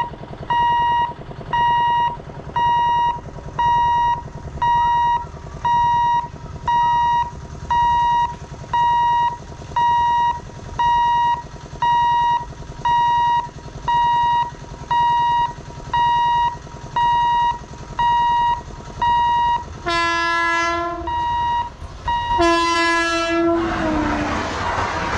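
Level-crossing warning beeper sounding steady beeps, a little over one a second. About twenty seconds in, an electric locomotive hauling an express blows its horn twice, the second blast dropping in pitch as it reaches the crossing, followed by the loud noise of the train passing at speed.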